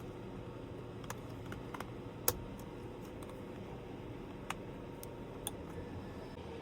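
A handful of short, sharp plastic clicks and taps, the loudest a little over two seconds in, as electrical connectors are pushed back into place on a steering column. Steady low background noise runs underneath.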